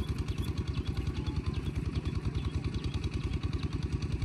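A small engine running steadily at idle with a fast, even beat.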